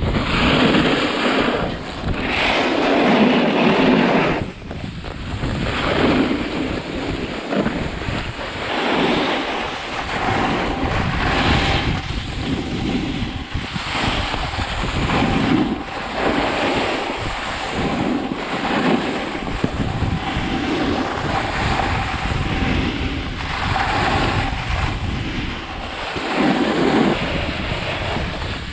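Snowboard edges scraping over packed snow, swelling and fading with each turn, mixed with wind rushing on the microphone.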